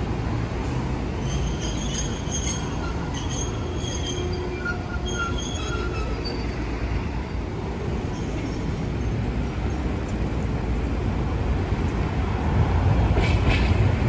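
A Hiroden tram (a 700-series car) runs along street track over a steady traffic rumble. Its wheels squeal on and off in thin high tones during the first half, and its running noise grows louder near the end as it comes close, with a few clicks.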